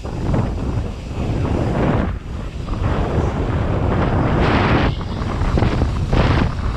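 Wind buffeting the microphone of a camera riding on a mountain bike going downhill fast, over the rumble of the tyres and bike on dirt trail and then on pavement. The rush swells and dips in loudness.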